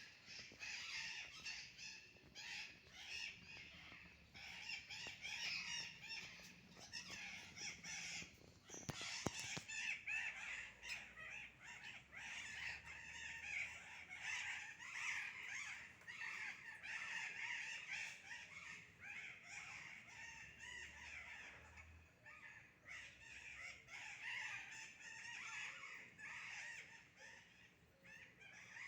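A flock of birds calling noisily all at once, a dense, continuous chatter of many overlapping squawks and chirps, with a brief knock about nine seconds in.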